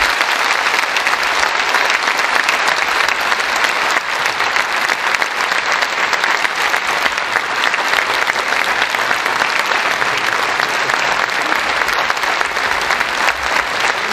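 A large seated audience applauding, loud and steady throughout.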